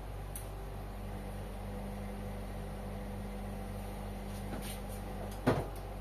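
Indesit front-loading washing machines in a wash tumble: a steady motor hum, with one tone dropping out just before a single thud near the end.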